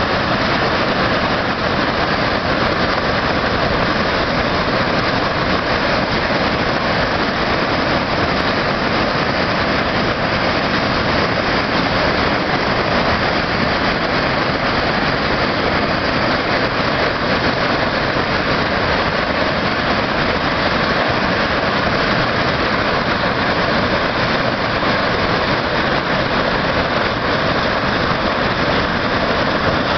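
Waterfall pouring into a river pool: a loud, steady rush of falling water.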